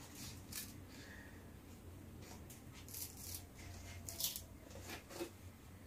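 Faint handling noises: light taps, scrapes and rustles as a hot metal loaf pan is tipped and worked with an oven mitt to free a baked loaf stuck at one corner.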